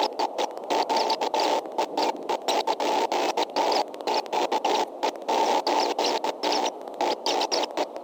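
Static noise from a nest webcam's audio feed, chopped by many brief dropouts several times a second.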